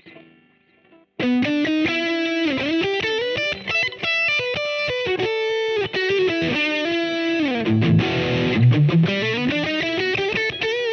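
Grote GRHL-2 headless electric guitar with its stock humbucker pickups, played through a high-gain distorted tone with delay added. After a faint ringing tail, a loud lead line starts about a second in, with single notes, slides and bends.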